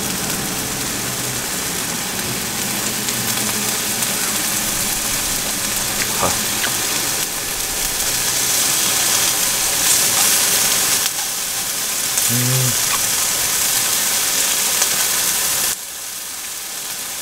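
Beef sizzling and frying in a pan on a portable gas stove, stirred now and then. It is a steady hiss that gets louder for a while and drops sharply near the end.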